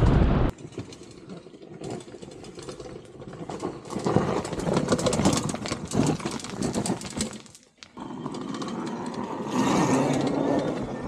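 Electric dirt bike (a YZ85 frame with a 72 V hub motor run as mid drive) riding past on a rocky dirt trail, its tyres crunching and clattering over stones and loose dirt, loudest in the middle and again near the end. It opens with a brief rush of wind on the onboard camera that cuts off about half a second in.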